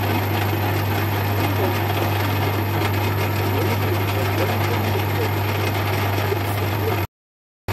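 Metal lathe running steadily with a constant motor hum as it turns a bar of aluminium stock against the cutting tool. The sound cuts off suddenly about seven seconds in and comes back half a second later.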